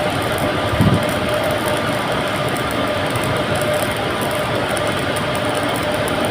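Steady crackling hiss of an electric welding arc, running without a break, with a dull thump about a second in.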